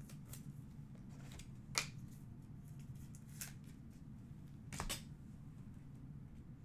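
Trading cards being handled: four short light clicks and taps, the sharpest about two seconds in, over a low steady hum.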